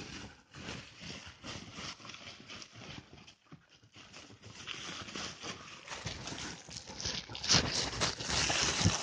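Shiny gold foil wrapping paper crinkling and rustling in a quick run of crackles as a Groenendael (Belgian sheepdog) pulls at it with its mouth to unwrap a toy. The crackling grows louder in the second half.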